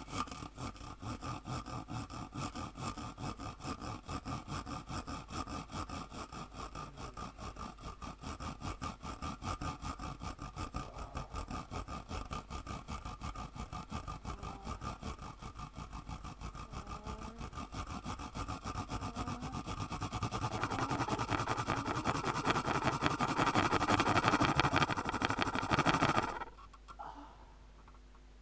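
A small ridged plastic washboard worn on the chest, scraped rapidly by hand in a steady rhythm. The scraping grows louder and denser about twenty seconds in, then stops abruptly near the end.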